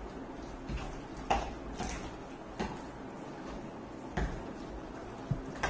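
A spoon clinking and scraping now and then against a glass bowl as chicken pieces are stirred into a thick batter, with a few short knocks at uneven intervals.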